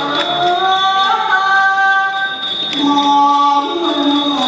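Likay singing: a single voice drawing out long, held notes that slide between pitches, in two phrases with a short break about halfway.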